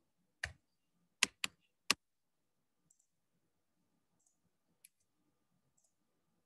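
Computer mouse and keyboard clicks during data entry: four sharp clicks in the first two seconds, one more about five seconds in, and faint ticks between them.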